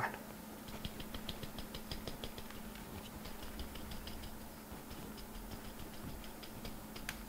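Coarse granular bonsai substrate clicking and rattling in a small ceramic pot as a thin stick is worked into it, a rapid run of light ticks. A sharper knock at the start and another near the end.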